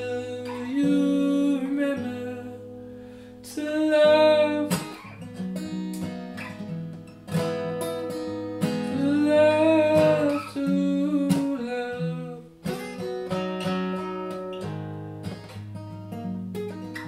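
Acoustic guitar strummed and picked, with a man's voice singing long held notes over it at times.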